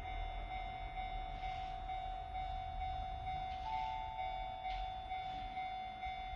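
A train approaching from a distance: a low rumble under a steady ringing tone, with a short higher tone coming in a little after the midpoint.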